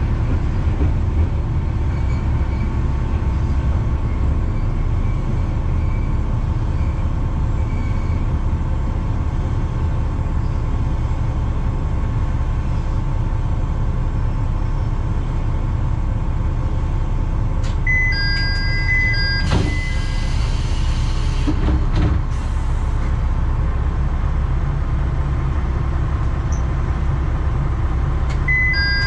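Diesel engine of a Kishu Railway KR301 railcar (ex-Shigaraki SKR300) rumbling as the car slows to a stop, then idling. A short two-tone electronic beep sounds twice, about ten seconds apart, and a burst of hissing air comes a little past the middle.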